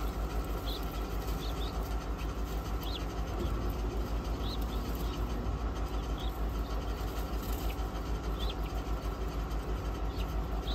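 Guinea fowl keets giving occasional short, high peeps, spaced a second or two apart, over a steady low hum.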